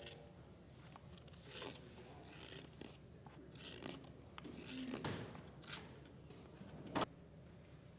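Faint, irregular scraping and crunching sounds, several short ones a second or so apart, with a single sharp knock about seven seconds in.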